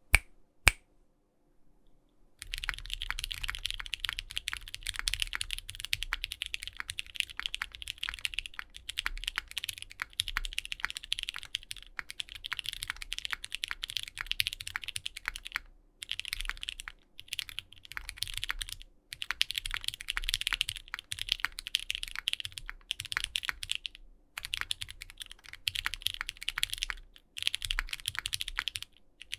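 Custom 60% mechanical keyboard with lubed Durock Light Tactile switches, a carbon fibre half plate and GMK keycaps being typed on in fast runs of keystrokes with short pauses, after two sharp single clicks at the start. It has a slightly hollow sound, which the owner puts down to the case mods.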